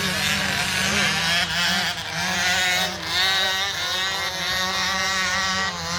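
Off-road race vehicle engines running and revving, their pitch rising and falling.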